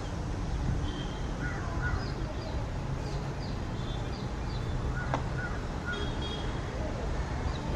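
Electric locomotive hauling a goods train, approaching at low speed: a steady low rumble. Birds chirp and call over it.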